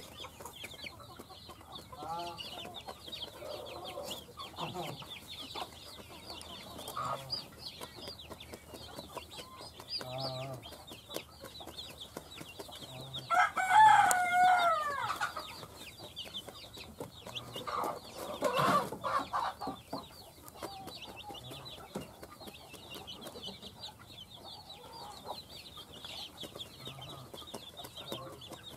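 Domestic chicks peeping constantly in a high, fast chatter while a hen clucks softly at intervals. About halfway through, a rooster crows once, the loudest sound, and another loud call follows a few seconds later.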